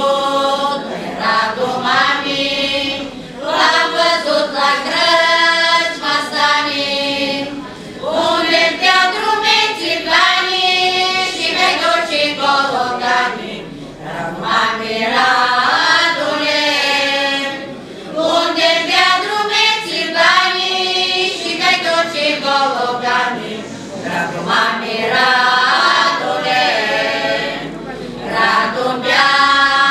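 Women's folk choir singing a traditional Vlach Romanian folk song in unison, unaccompanied, in phrases of a few seconds with short breaks for breath.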